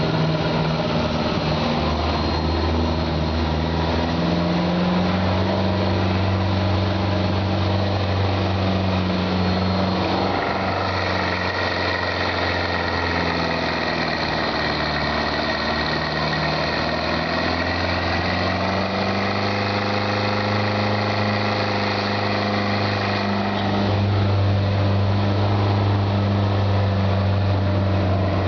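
Engine of a safari jeep heard from aboard while it drives, a steady drone. Its note drops and climbs again between about 10 and 18 seconds in, then holds and gets a little louder near the end.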